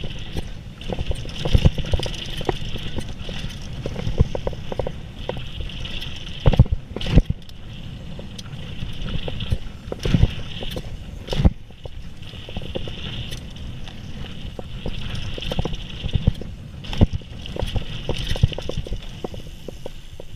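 Mountain bike descending a dirt flow trail: a steady rumble of tyres and frame rattle, with several sharp knocks as the bike lands off small jumps and bumps, the loudest about seven seconds in.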